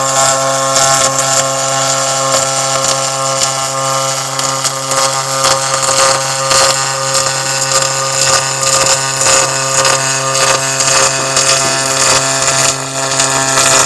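MIG welding arc on aluminum plate, laying one long continuous bead: a steady hum with a crackling hiss over it.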